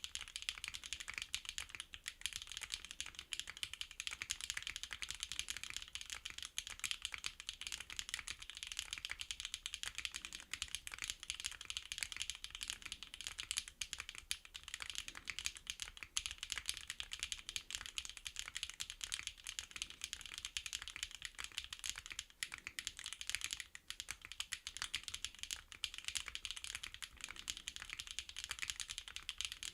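Fast, continuous typing on a NEO65 custom mechanical keyboard with HMX Keynetix Candy Red linear switches: a dense stream of light keystroke clicks that barely pauses.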